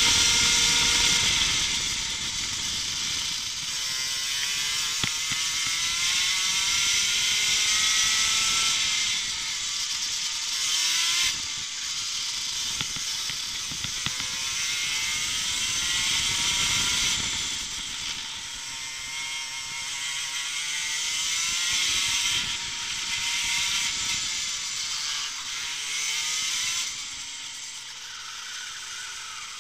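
Racing kart engine heard onboard, its pitch repeatedly climbing as the kart accelerates and dropping back as it lifts for corners, under a strong hiss of wind over the microphone.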